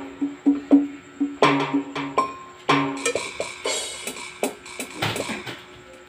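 Yamaha PSR-E333 portable keyboard played with a percussive, drum-like voice: a quick run of short struck notes, then about three seconds in, busier hits with a cymbal-like hiss.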